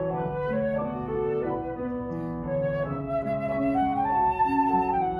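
Concert flute with piano accompaniment playing a slow melodic passage of held notes. The flute line climbs to a long held high note about four seconds in.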